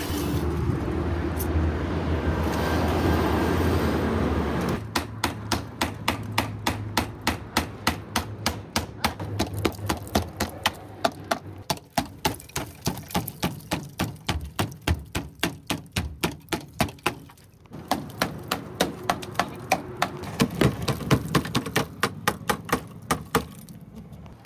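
Rapid, evenly spaced hammer blows on the rusted sheet-steel quarter panel of a bus, about four a second, with a short pause partway through. A steady low rumble comes before the hammering starts, about five seconds in.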